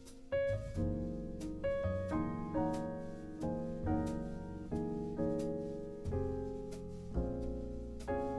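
Background music: a gentle piano piece with notes and chords struck at an even, unhurried pace.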